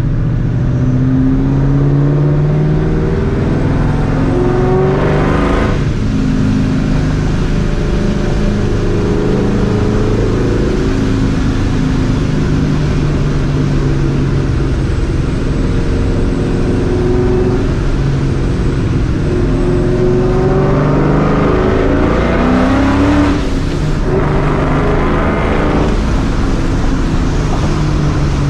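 Straight-piped, Vortech-supercharged 2004 Mustang GT 4.6 V8 under throttle. Its note climbs in pitch, breaks off suddenly near six seconds as with a gear change, and runs steady for a while. It climbs again from about twenty seconds, breaks off once more and pulls on.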